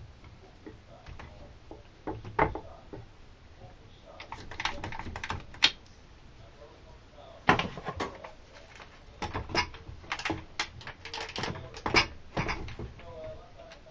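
Quick clamps being ratcheted tight on a wooden jig fence, with irregular clicks and knocks in short clusters as the fence is positioned and clamped down.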